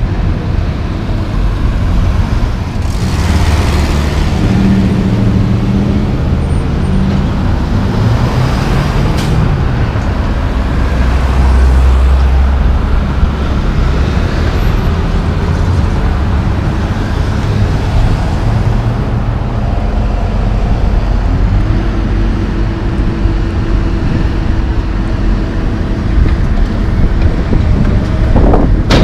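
Road traffic driving past: a diesel dump truck and cars with their engines running, a continuous low rumble, with engine hum rising and falling as vehicles pull through the intersection.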